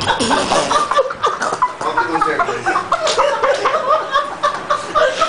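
People laughing continuously, in quick repeated bursts.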